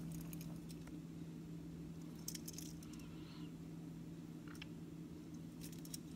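Faint handling noises of fingers turning a small diecast toy car: a few light clicks about two seconds in, again past four seconds and near the end, over a steady low hum.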